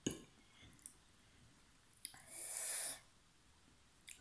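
Eating sounds: a fork clicks against a plate at the start and again near the end, with small ticks between. About two seconds in comes one loud, airy intake of air lasting nearly a second.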